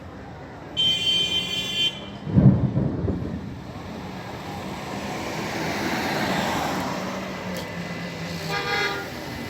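A car horn honks briefly about a second in, then a loud, low crack of thunder, followed by a rolling rumble that swells and fades over several seconds.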